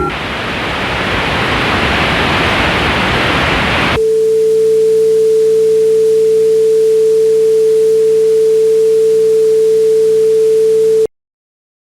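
Loud television static for about four seconds, then a single steady mid-low test tone with a faint hum under it. The tone cuts off abruptly into dead silence near the end.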